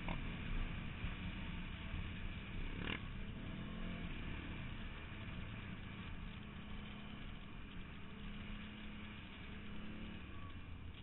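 Quad bike engine running under way on a snowy track, with a steady rush of wind noise on the bike-mounted microphone. A single sharp knock about three seconds in.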